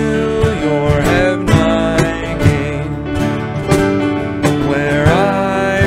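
Hymn music led by acoustic guitar, strummed with a regular beat.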